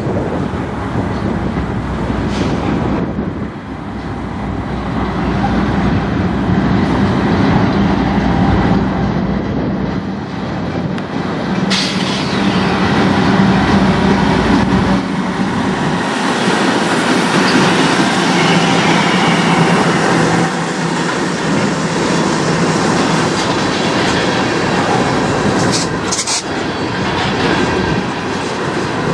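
Freight train passing close by: the diesel locomotives' engines run with a steady hum as they come past, then the tank cars roll by with steady wheel-on-rail noise. A sharp clank sounds about twelve seconds in and twice more near the end.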